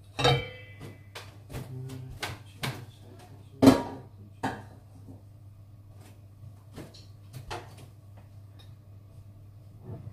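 Kitchen clatter: a few sharp knocks and metallic clinks as a freshly baked loaf is handled on a metal wire cooling rack. The loudest knock comes about three and a half seconds in, then only sparse small clicks follow. A low steady hum runs underneath.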